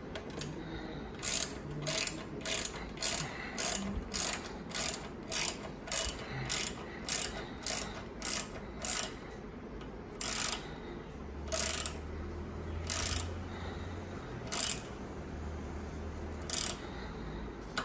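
Ratcheting torque wrench clicking as it tightens a bicycle seatpost clamp bolt to 5 Nm. Short ratchet bursts come about two a second at first, then further apart from about ten seconds in.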